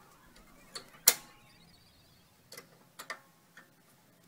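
Spring-steel anti-rattle clip being snapped back onto a Mercedes W164 rear brake caliper: a few sharp metallic clicks, the loudest about a second in with a brief ring.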